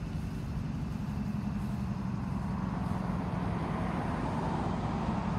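Diesel locomotives idling, among them a BNSF GE ES44AC with a 12-cylinder GEVO engine: a steady low, rumbling engine drone, with a rushing noise building slowly in the second half.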